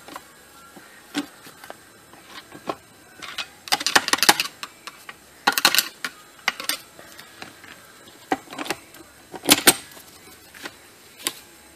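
Steel parts of a Honda S40 manual transmission clicking and clinking irregularly as shift-mechanism pieces and the shift rod are worked into place by hand and with a hand tool. Louder clusters of clinks come about four, five and a half, and nine and a half seconds in.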